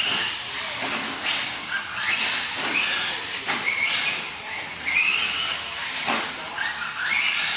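Electric RC short-course truck's Novak 7.5-turn brushless motor whining in repeated bursts of throttle, the pitch rising with each burst about once a second, with short knocks and tyre noise from the dirt track between them.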